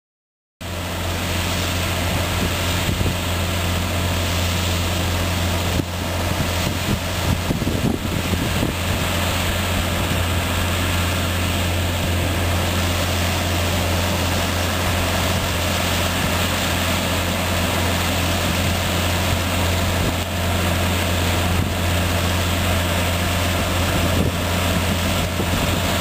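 Case IH tractors and a trailed Grimme potato harvester working side by side: a steady low engine drone under the harvester's continuous machinery noise, with a few brief knocks.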